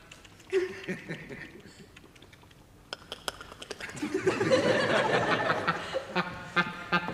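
Laughter in short bursts, with a longer, fuller stretch of it from about four seconds in, then quick laughing pulses again near the end.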